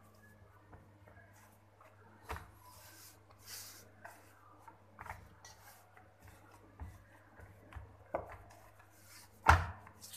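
Hands kneading soft pizza dough in a stainless steel pan: quiet, irregular rubbing and pressing of the dough against the floured metal, with a louder thump about nine and a half seconds in.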